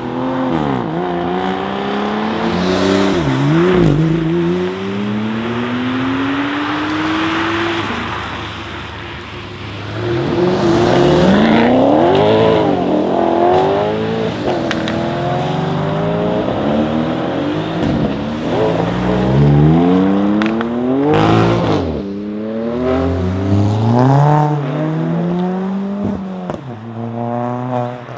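Audi RS6 Avant C8's twin-turbo V8 through a Capristo exhaust with the particulate filter (OPF) deleted, revving up hard again and again, its pitch climbing and then falling away. A few sharp crackles from the exhaust come in among the revs.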